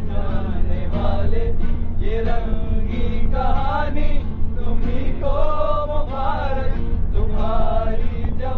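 Several men singing a song together to a strummed acoustic guitar, over a steady low rumble.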